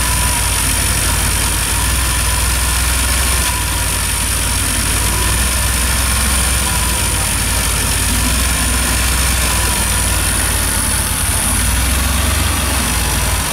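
DeLorean DMC-12's PRV V6 engine idling steadily while its fuel mixture is set, with a steady high whine above the low engine hum.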